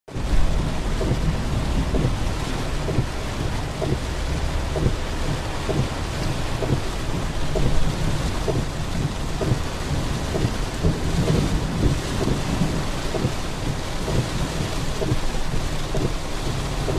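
Heavy rain pouring steadily, with a dense patter of drops hitting a surface over a constant low rumble.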